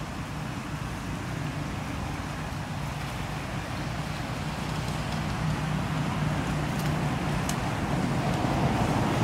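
A steady low motor hum under a rushing noise that grows gradually louder toward the end.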